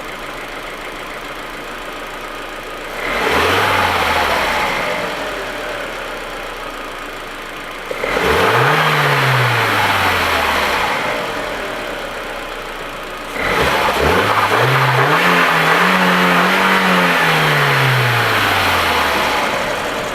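Audi A4's 1.8-litre turbocharged four-cylinder engine idling and revved three times: a brief blip about three seconds in, a higher rev about eight seconds in, then a rev held for several seconds near the end before it falls back to idle.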